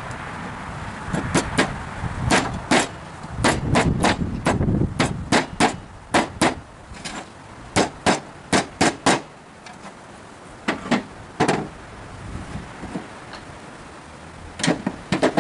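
Claw hammer striking a pressure-treated pine block: quick runs of sharp knocks, separated by short pauses, then two more and a final cluster near the end.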